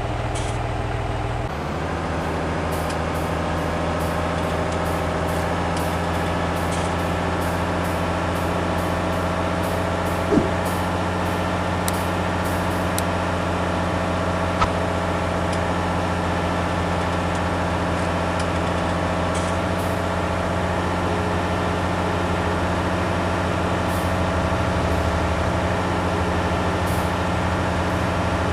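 Steady heavy-vehicle engine running sound that changes to a new steady note about a second and a half in. Two brief sharp clicks come around the middle.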